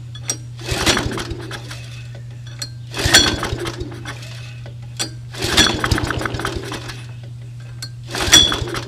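Recoil starter of an old Toro mower's Suzuki engine pulled four times, about every two and a half seconds. Each pull is a rattling, clinking whirr of the cord and the engine spinning over. The engine does not catch, as the pulls clear oil left in the cylinder.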